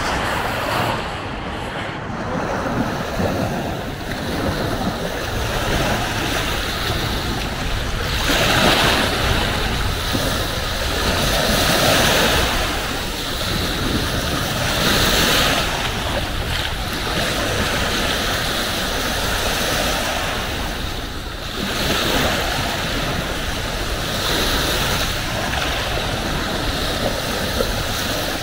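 Sea waves washing onto a beach, the surf swelling every few seconds, with wind rumbling on the microphone.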